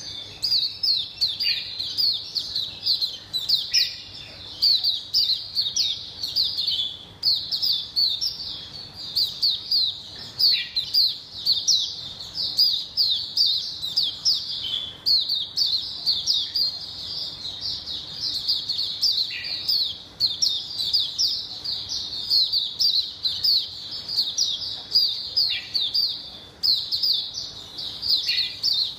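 White-eye (mata puteh) singing from its cage: a long run of fast, high chirping phrases, each note sliding downward, in bursts separated by brief pauses.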